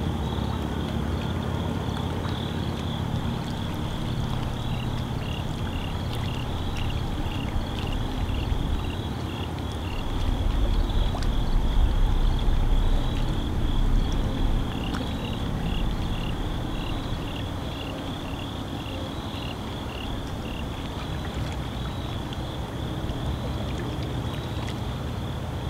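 A steady high trill with regular short chirps, about two a second, from small calling animals (frogs or insects at the waterside). A low rumble runs underneath and swells for a few seconds around the middle.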